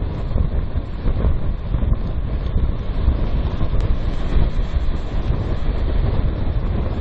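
Loud, steady storm wind on the microphone, with heavy sea waves breaking and spraying.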